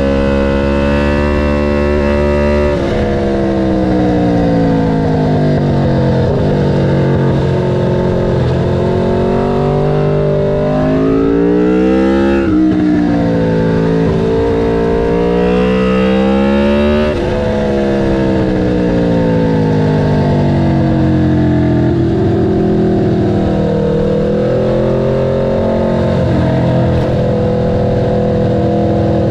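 Aprilia RSV4 F motorcycle's V4 engine at speed on track, its revs repeatedly climbing and then dropping through gear changes and slowing for corners, with a brief sharp dip and recovery about twelve seconds in.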